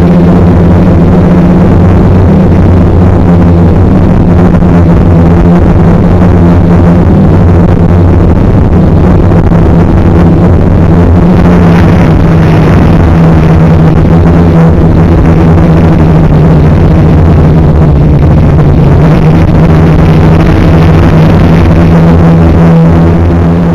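Electric motors and propellers of a MultiWii multirotor, heard very loud from a camera riding on the craft, buzzing steadily with small shifts in pitch as the throttle changes in flight.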